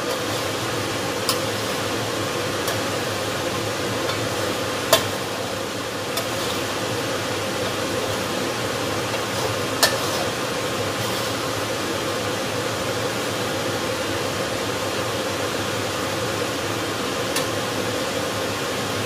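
Thick chili sambal frying and bubbling in oil in a metal wok, a steady sizzle, with a few sharp clacks of a metal spatula against the pan as it is stirred.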